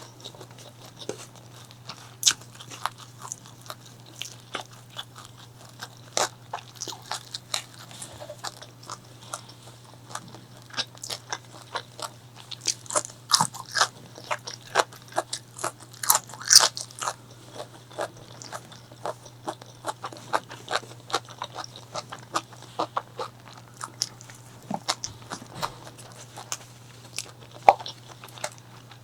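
Close-miked chewing of crispy food: many sharp, irregular crunches and bites, busiest and loudest around the middle, over a faint steady low hum.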